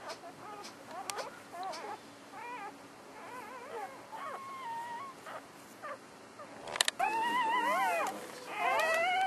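Newborn corgi puppies squeaking and whimpering in many short, wavering cries, then two louder, longer whining cries about seven and nine seconds in.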